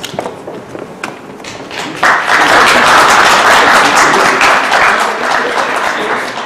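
Room of people applauding: scattered taps at first, then applause breaking out about two seconds in, loud and dense, and fading toward the end.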